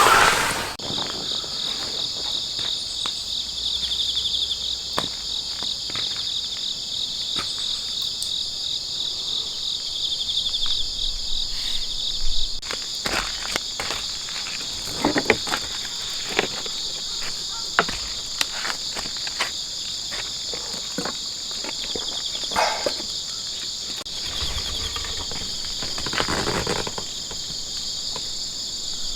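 Steady, high-pitched chorus of insects, with a fast pulsing trill in the first half, over scattered light clicks and knocks.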